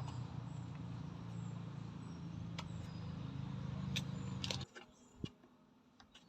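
A steady low engine hum with a few sharp clicks, cutting off suddenly about four and a half seconds in, followed by a single thump.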